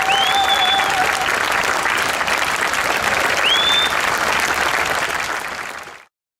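Large crowd applauding and cheering, with a held call in the first second and two short rising whistles. The applause fades out and cuts off to silence near the end.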